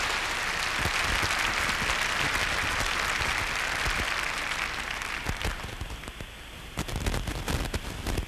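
Audience applause greeting the conductor. It fades away after about five and a half seconds, leaving a few scattered claps near the end.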